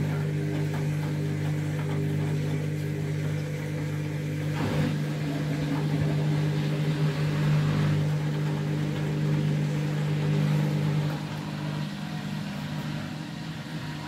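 Candy front-loading washing machine spinning its drum: a steady motor hum with a rushing swish. About eleven seconds in the hum fades and the level drops as the drum slows.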